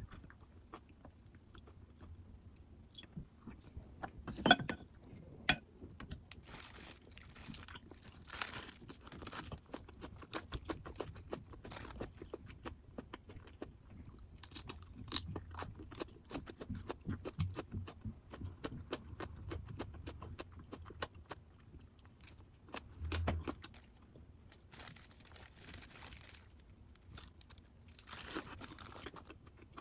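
A person eating: chewing and crunching food, with many light clinks of utensils against dishes.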